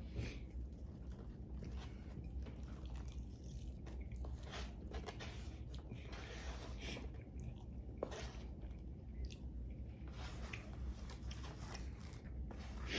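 A person chewing and biting food with crunching sounds, a stream of irregular wet and crisp mouth noises.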